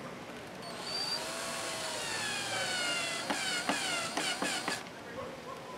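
Cordless drill driving a screw through plywood into a wooden rail. The motor's whine drops slowly in pitch as the screw bites, and near the end it comes in short bursts with a few sharp clicks as the screw is driven home.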